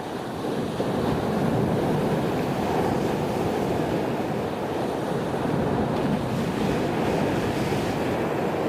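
Stormy sea and wind: a steady rushing roar of surf and gusting wind with no breaks, strongest in the low-to-mid range.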